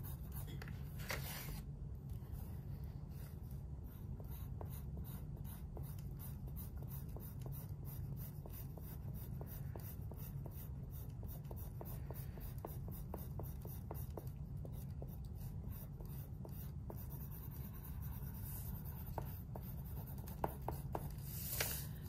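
Green coloured pencil shading on drawing paper: repeated scratchy strokes as the pencil fills in an area, over a steady low hum.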